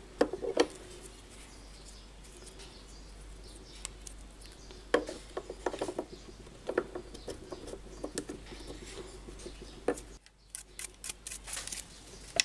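Toothbrush scrubbing the rubber seal and plastic flange of a water pump: light scratchy brushing with scattered small clicks and knocks of plastic parts being handled.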